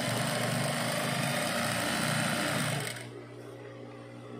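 Sewing machine running steadily, top-stitching a skirt waistband, then stopping a little under three seconds in.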